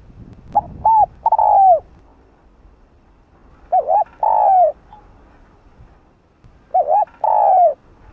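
Spotted dove (Streptopelia chinensis) cooing: three phrases about three seconds apart, each a couple of short notes followed by a longer note that falls in pitch at its end.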